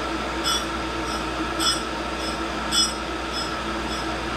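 Tool and cutter grinder running with its diamond cup wheel grinding a steel chuck wrench: a steady motor hum with a high-pitched grinding hiss that swells and fades about twice a second as the work is passed across the wheel.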